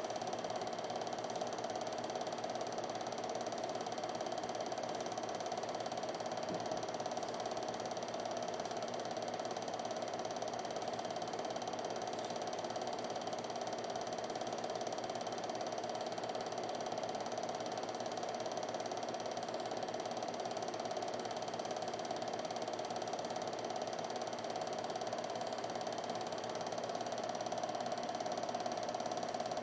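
Home-movie film projector running: the steady mechanical clatter of its motor and film-advance mechanism, with a constant mid-pitched hum.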